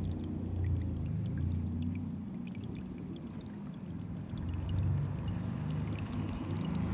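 Water pouring, with a steady low rumble underneath and small scattered ticks in the first half.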